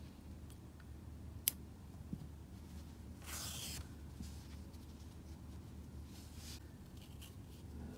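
Quiet handling sounds of hand crocheting: one sharp click about a second and a half in, then two brief rustles of yarn and hook being worked, over a low steady hum.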